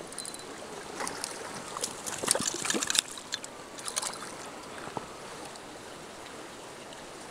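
Water splashing and sloshing as a hooked trout thrashes at the surface of the pond, in irregular bursts loudest about two to three seconds in, then settling.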